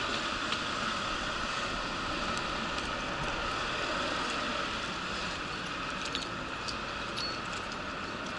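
Steady mechanical drone with a constant hum running through it, broken only by a few faint light clicks.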